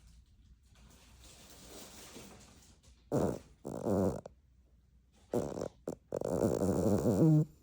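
Loud snoring: two snores about three seconds in, then another group near the end with one longer drawn-out snore.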